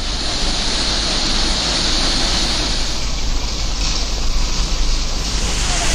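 Rough sea surf rushing and churning steadily around people in the water, as a continuous loud wash of noise.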